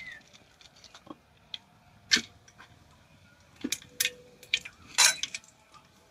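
Whole spices frying in hot oil, giving scattered sharp pops and crackles, the loudest about two seconds in and again near five seconds.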